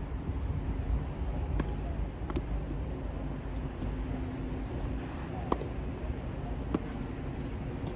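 Tennis ball being hit and bouncing on the court: four short, sharp pops spread across a few seconds, over a steady low rumble of wind on the microphone.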